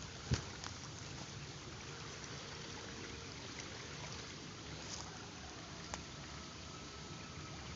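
River water running steadily, with a short knock about a third of a second in and a sharp click at about six seconds.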